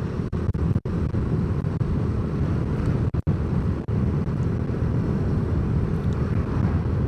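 Steady road noise from a moving vehicle, with wind rushing over the microphone.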